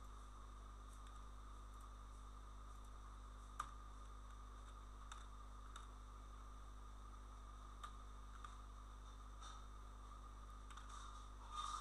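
Faint steady electrical hum with a handful of scattered computer keyboard and mouse clicks, the sharpest about a third of the way in and a short flurry of keystrokes at the end.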